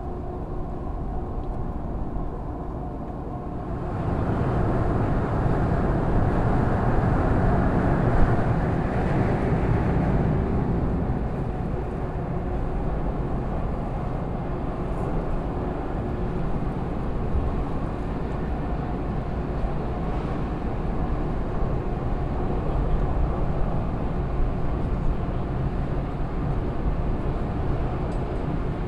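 Ogasawara Maru ferry's machinery running as it comes in to the pier: a steady low rumble with a faint hum, growing louder about four seconds in.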